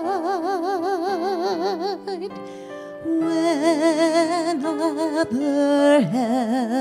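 A woman sings a slow song solo with wide vibrato on long held notes over sustained keyboard accompaniment. Her voice breaks off briefly a little after two seconds in, then comes back in.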